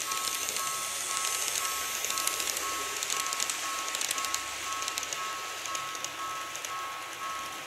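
Level-crossing warning bell ringing in steady, evenly repeating two-tone pulses. Under it runs the light, crackly clatter of an N-gauge 205 series model train's wheels on the track, which thins out as the train clears the crossing.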